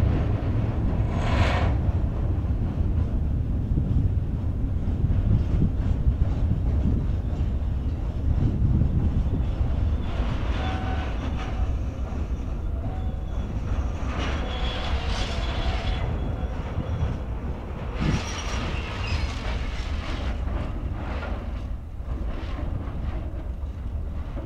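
Freight train of covered wagons rolling past at speed: a steady low rumble of wheels on the rails, with short high-pitched wheel squeals now and then.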